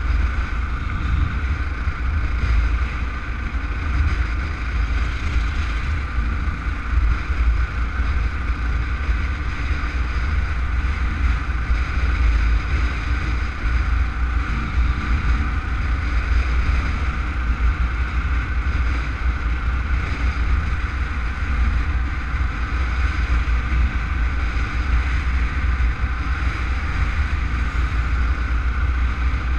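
Steady wind rush and low buffeting rumble on a helmet-mounted camera's microphone while riding along a road at a steady pace, with the vehicle's engine running underneath.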